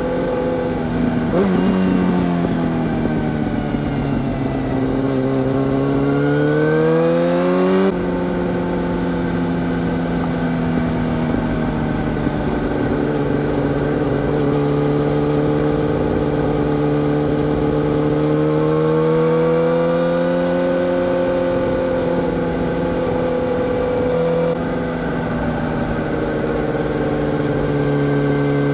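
2005 Yamaha YZF-R1's 998 cc inline-four through a Yoshimura full exhaust system, under way on the road. The revs climb for several seconds and drop sharply about eight seconds in, as at an upshift. After that the engine pulls steadily, its pitch rising and falling gently, with another sudden change near the end.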